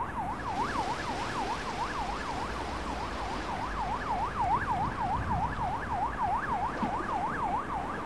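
Emergency vehicle siren in a fast yelp, its pitch sweeping up and down about three times a second, over a steady low rumble and hiss.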